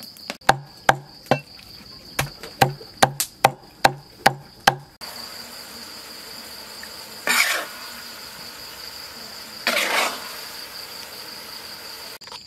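A steady high insect trill with, for the first five seconds, about ten sharp knocks with a dull thud, two or three a second. Then two short scraping rushes of a metal spoon as a ground-pork topping is spooned onto grilled eggplant on a wooden plate.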